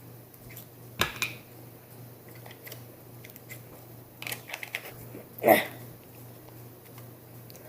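Glitter slime being handled and stretched: scattered small sticky clicks and squishes, the loudest about five and a half seconds in, over a steady low hum.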